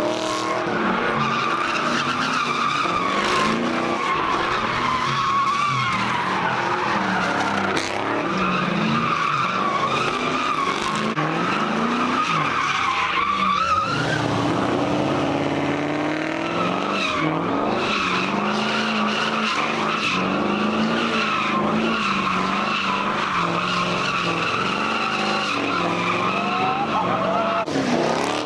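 Cars doing donuts: tyres squealing steadily and high under hard wheelspin, over engines revving high. The sound breaks off and picks up again abruptly about halfway through as one spinning car gives way to another.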